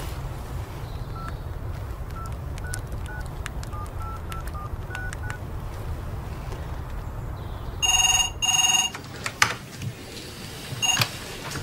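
A mobile phone keypad beeps about a dozen times as a number is dialled, over a low outdoor rumble. Then a desk telephone rings twice in a quick double ring, and near the end a short burst of ringing is cut off with a click as it is answered.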